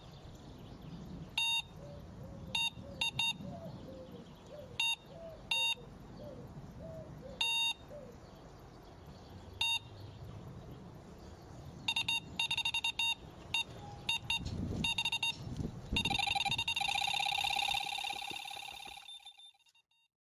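Electronic computer-style beeps from an intro sound effect. Single short bleeps come at irregular intervals, then crowd together, then run on as a rapid string of beeps for about three seconds before fading out. A low whooshing rumble runs under them.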